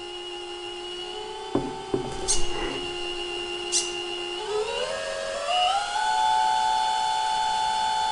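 Electric hydraulic pump of an RC Volvo L250G model wheel loader whining steadily, then rising in pitch about halfway through as it speeds up to feed a smooth hydraulic movement, and holding the higher pitch. A few sharp clicks in the first half.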